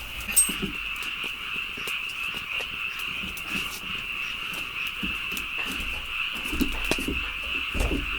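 A chorus of frogs calling steadily, one continuous high-pitched trill, with scattered short clicks over it.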